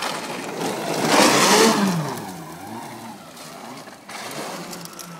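Electric snowmobile pulling away and driving off through snow: a loud rush about a second in, with a motor whine rising and falling in pitch as it speeds up and slows, then fading as it moves away.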